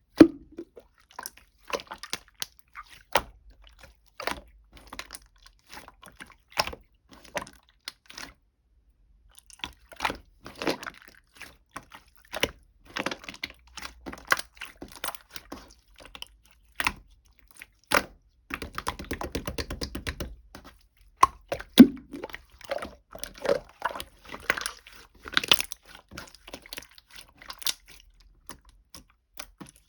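Close, irregular clicks, taps and crackles, coming in quick clusters with short pauses between them.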